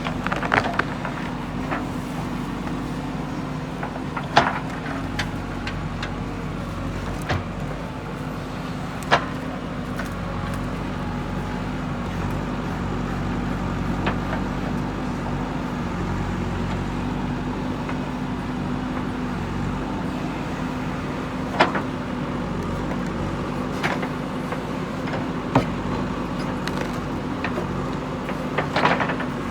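JCB 3DX backhoe loader's diesel engine running steadily under work, with a few sharp knocks standing out over it.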